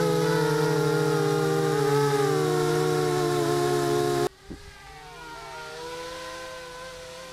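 Small FPV racing quadcopter's ZMR 1804 2400KV brushless motors and propellers whining, the pitch wavering up and down with throttle, loud and close as heard from the quad's own onboard camera. About four seconds in, the sound cuts sharply to a much fainter, distant buzz of the same quad flying overhead.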